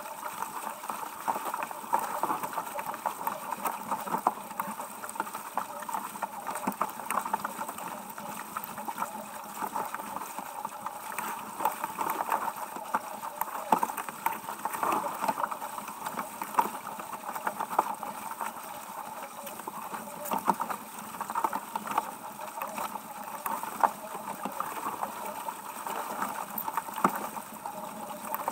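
Water rushing and splashing along the hull of a sailing yacht under way, a steady wash broken by many short, uneven splashes and crackles.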